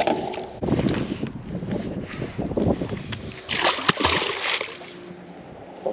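A smallmouth bass splashing and thrashing at the water's surface beside the boat. The splashing is loudest in a burst near the middle, then dies down.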